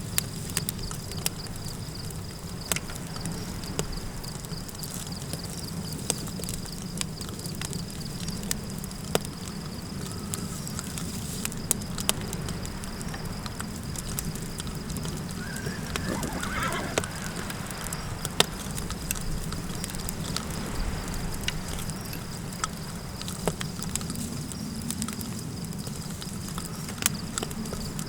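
Campfire crackling with scattered sharp pops over a steady low wind rumble; about halfway through, a horse whinnies once, briefly and wavering.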